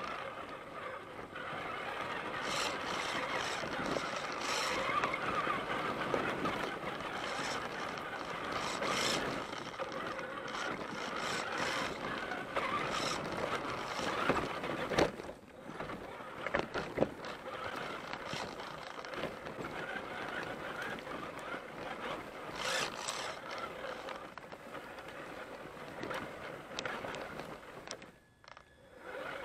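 Traxxas Summit RC truck's electric motor and drivetrain whining as it drives through dry grass over rocky ground, with grass brushing and stones knocking against the body, heard from its onboard camera. The sound drops away briefly near the end.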